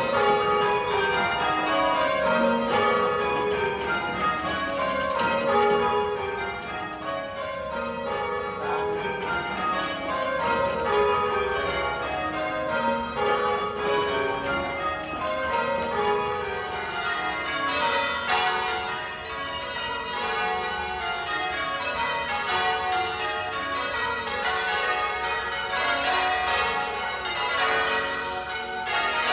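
Church tower bells rung full-circle by ringers on ropes, ringing rounds: the bells strike one after another in a falling run of notes, and the run repeats over and over.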